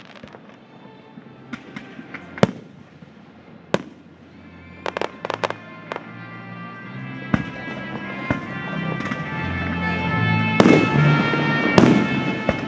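Aerial fireworks shells bursting with sharp bangs at irregular intervals, with a quick run of pops about five seconds in. The overall noise builds steadily louder, and the two loudest bangs come near the end.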